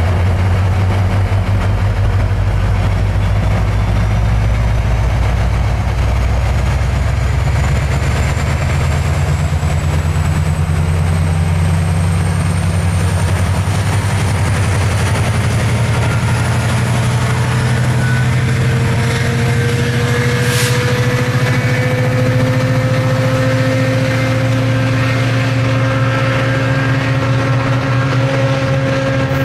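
Metrolink diesel locomotive working under power as the commuter train pulls through, a steady low engine drone with a high whine and a mid tone rising slowly in pitch as it accelerates. A short sharp sound cuts in about twenty seconds in.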